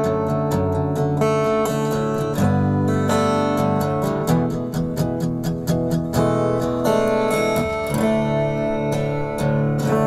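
Isolated acoustic guitar track from a studio multitrack recording, playing steady strummed chords.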